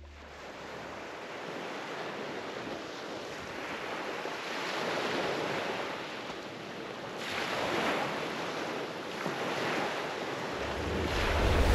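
Sea waves breaking and washing up a pebbly shore, swelling in surges every two or three seconds. Near the end a low rumble rises in underneath.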